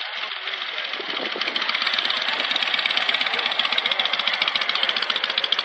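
Engine running with a rapid, even pulse, growing louder over the first couple of seconds.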